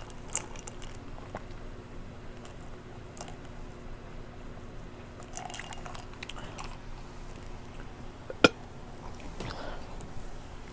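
Close-up chewing and wet smacking mouth sounds of a person eating chicken Alfredo, in scattered small clicks and squelches, with one sharp click about eight and a half seconds in.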